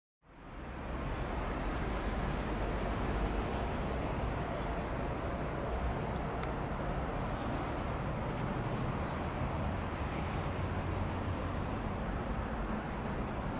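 EH500 electric locomotive moving slowly: a steady low rumble with a thin, steady high-pitched tone above it, fading in just after the start. A single sharp click about six seconds in.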